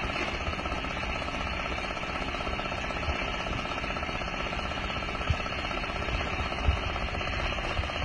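An engine-driven machine running steadily with a fast, even rattle, and a few low thumps from inside it.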